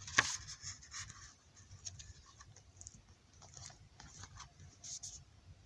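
A hardcover book being handled: a sharp tap just after the start as the cover comes shut, then scattered light ticks and rustles of pages and fingers on the cover.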